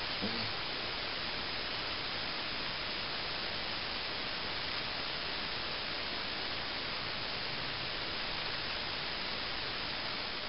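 Steady, even hiss of background noise, with a faint brief sound just after the start.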